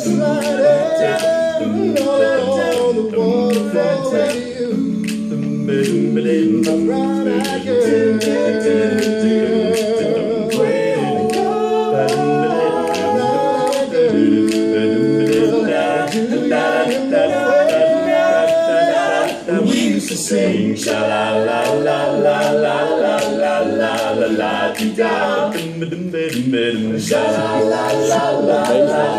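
Male barbershop quartet singing a cappella in four-part close harmony, sustaining and moving through chords. Short sharp clicks recur on a fairly steady beat through the singing.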